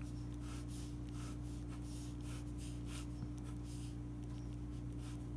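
Ballpoint pen scratching on paper as lines are drawn, a string of short irregular strokes, over a steady low hum.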